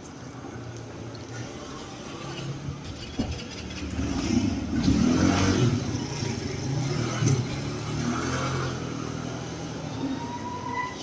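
Road traffic: a steady rumble of cars, swelling as a vehicle passes close by, loudest a little before the middle.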